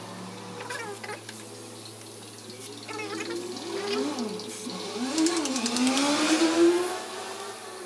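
Turbocharged engine running in the bay, its pitch rising and falling a few times about halfway through as it is revved, over a steady low hum.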